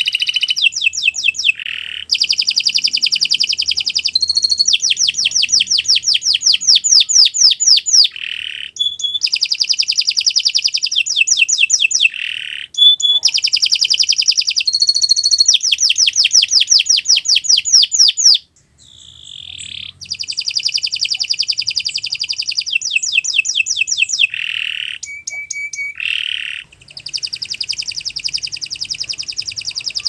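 Domestic canary singing a long, nearly unbroken song of rapid high trills and buzzy rolls, switching from one phrase to the next. The song has only short breaks, the longest a little past halfway.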